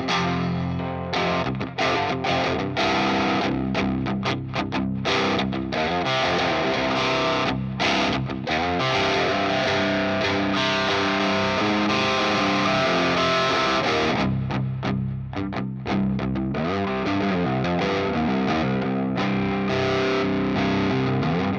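Electric guitar with Seymour Duncan Jupiter humbuckers played through a distorted high-gain amp, tuned to drop C. A riff with many abrupt, clean stops in the first half and again near the end, with longer sustained playing in between; the hard cut-offs fit the noise gate on the rhythm sound.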